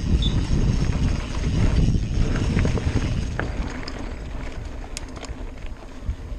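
Mountain bike riding fast down a dirt and grass trail: wind buffeting the microphone with a loud low rumble, plus scattered clicks and rattles from the tyres and bike over the rough ground. The rumble eases in the second half as the trail flattens.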